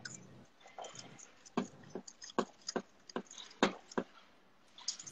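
A metal utensil stirring egg-and-flour batter in a small stainless-steel bowl, clinking against the bowl's side about six times at an uneven pace.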